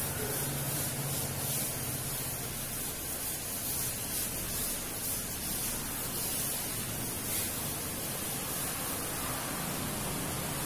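Steady hiss with no distinct event standing out.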